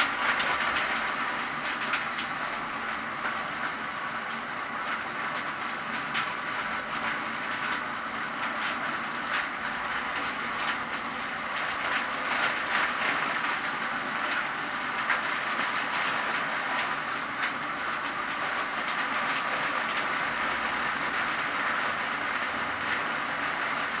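Homemade leaf shredder driven by a washing-machine motor, running steadily while leaves are fed in and chopped. A constant whirring noise with many quick clicks and ticks of leaf pieces striking inside the drum.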